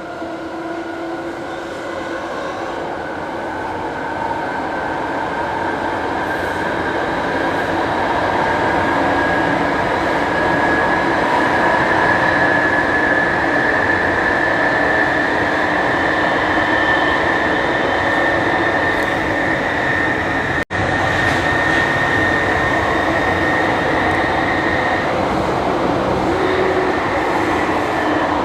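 Jubilee line tube train (1996 Stock) running in tunnel, heard from inside the carriage: a steady rumble of wheels on track, with the traction motor whine slowly rising in pitch as the train picks up speed. It grows louder over the first several seconds, then holds steady.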